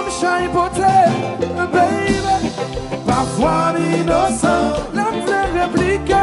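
A live kompa band playing: electric bass, drum kit and keyboards, with singing over the music.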